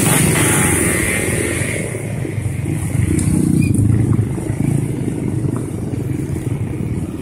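A motorcycle engine running while riding on a rough dirt road, with wind hiss on the microphone that dies down after about two seconds.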